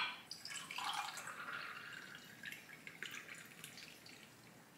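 Water poured from a glass carafe into a drinking glass, splashing and trickling for about three seconds before tailing off.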